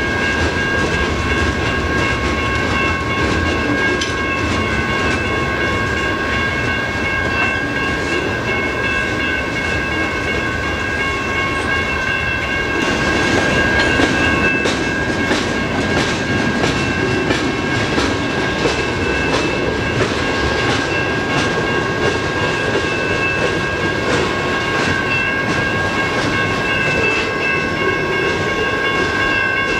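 Freight cars rolling past, wheels clacking over the rail joints, with the clatter getting louder about thirteen seconds in. Over it, steady high ringing tones, typical of a grade-crossing bell.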